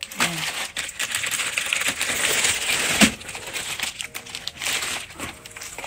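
Clear plastic wrapping on ring-bound notebooks crinkling and rustling as the notebooks are handled and lifted out of a cardboard box, with small clicks throughout and one sharp knock about three seconds in.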